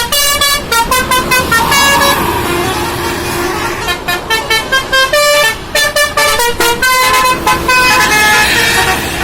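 A tour bus's telolet basuri musical horn playing quick melodic runs of short, high, shifting notes. A lower held tone comes in the middle, and a few longer held notes near the end.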